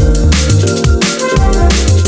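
Drum and bass music: a fast breakbeat with sharp snare hits over a deep bass line, with a short melodic line in the middle range.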